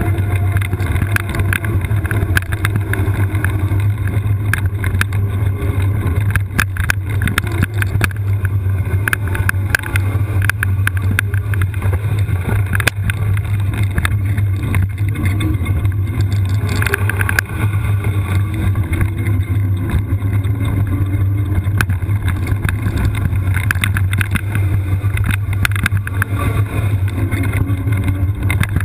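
All-terrain wheelchair rolling downhill over a rough trail: a steady low rumble with frequent rattles and knocks from the frame and wheels over the uneven ground.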